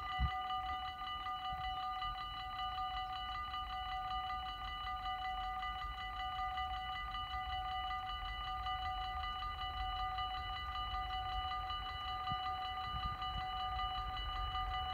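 Dutch automatic level-crossing warning bells ringing rapidly and without a break, a steady metallic ring of fast even strokes, signalling that a train is approaching while the half-barriers are down.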